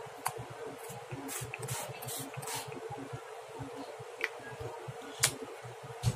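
Small hand-held pump spray bottle hissing out mist in several short separate bursts.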